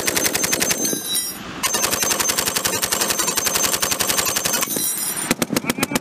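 Tripod-mounted belt-fed machine gun firing rapid automatic bursts: a burst that stops about a second in, then a long sustained burst of several seconds, followed near the end by a quicker string of more separated shots.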